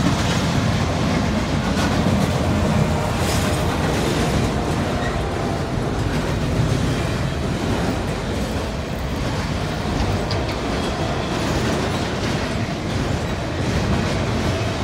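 A CSX double-stack container train's cars rolling past, their wheels rumbling and clattering steadily over the rails.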